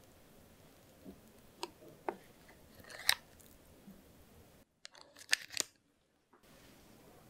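Spoon putting thick whipped egg-yolk cream onto coffee in a glass cup: a few soft sticky clicks and taps of the spoon and cream, the sharpest about three seconds in and a quick cluster a little after five seconds.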